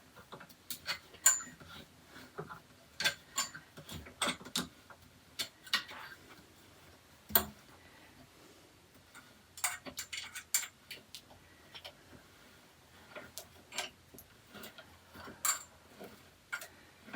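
Irregular light clicks and taps of shoe rack parts being handled and fitted together by hand, with one heavier knock about seven seconds in.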